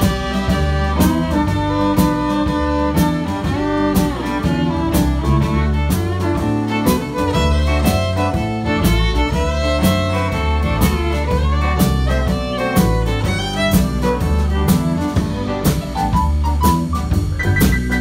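Live country band playing an instrumental break of a two-step song, the fiddle prominent over electric bass, drum kit and keyboard, with a steady beat.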